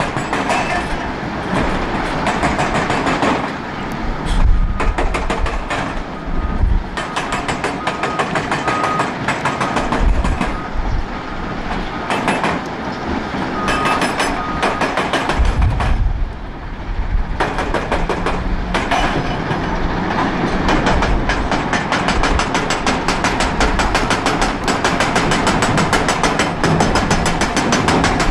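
Heavy quarry machinery at work: a Volvo L350F wheel loader's diesel engine and the dense, rapid clatter of rock passing through a mobile crushing and screening plant.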